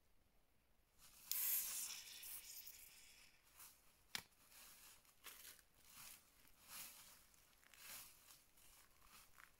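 Packaging on a white container being torn open by hand: a long tearing sound about a second in, then scattered crinkling and rustling, with one sharp click near the middle.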